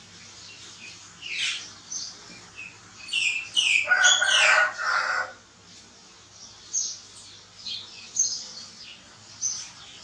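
Short high-pitched chirping calls, several falling in pitch, with a louder squealing cry about four seconds in.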